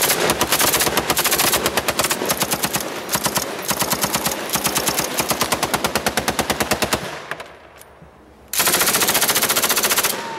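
Automatic rifle firing rapid fully automatic bursts from inside a vehicle's cabin: one long burst of about seven seconds, then, after a pause of about a second and a half, another shorter burst near the end.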